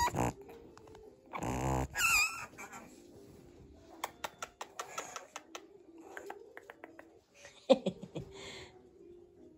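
Pug puppy giving a short bark or yip about two seconds in, then its claws clicking in quick, uneven taps on a tiled floor as it runs about, with one louder knock near the end.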